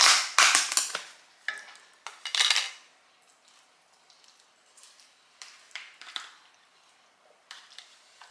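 Metal spoon clinking and scraping against a plastic food container while food is scooped out. Loud clattering handling of the plastic container fills the first few seconds, then only lighter scattered taps and scrapes.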